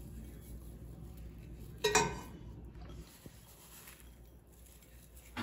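Quiet kitchen background with one sharp, ringing clink of ceramic dishware about two seconds in, as a bowl of breadcrumbs is worked over a ceramic baking dish.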